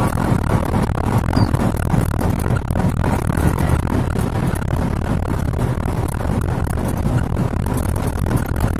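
Old Mitsubishi Fuso dump truck loaded with about 40 tonnes of sand, heard from inside the cab: a steady, loud drone of engine and road noise as it drives.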